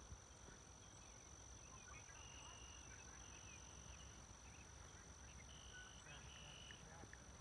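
Near silence: faint outdoor ambience, a low rumble with a steady thin high whine and four short high buzzes around the middle.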